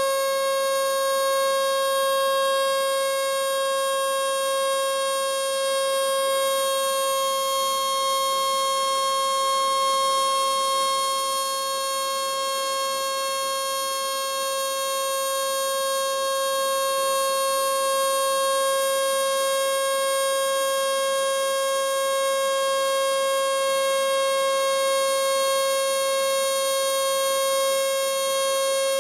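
Circa-1911 Model 2 electric outdoor siren, a 220 V unit, held at a steady single pitch at full speed: the continuous steady tone of the alert signal.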